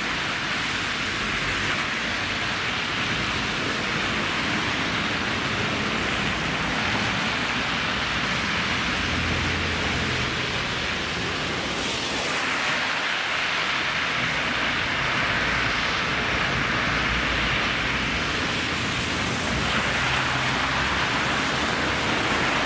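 Street traffic on a slushy, wet road: a steady hiss of tyres on wet slush, swelling as vehicles pass about halfway through and again near the end.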